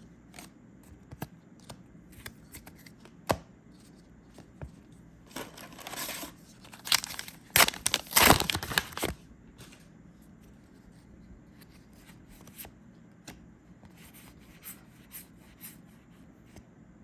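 A foil trading-card booster pack being torn open, its wrapper crinkling loudly for a few seconds in the middle, with light clicks and flicks of cards being handled before and after.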